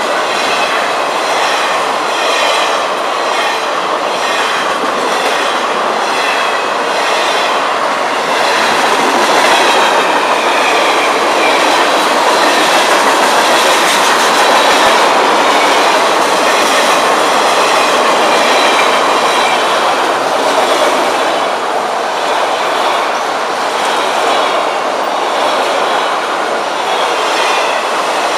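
Freight cars of a long FEC train rolling past close by: the steady rumble and rattle of steel wheels on rail, with rhythmic clicks as the wheelsets cross rail joints.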